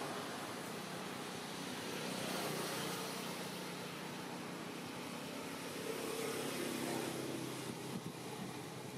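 Steady outdoor background noise of distant road traffic: an even hiss with a low hum that swells slightly about six to seven seconds in.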